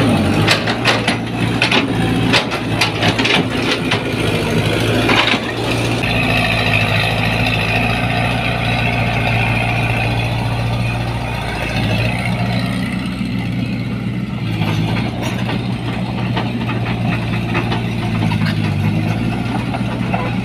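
Tracked excavator's diesel engine running steadily. In the first few seconds there are knocks and scrapes as the bucket works in mud, then a high whine while the machine tracks forward.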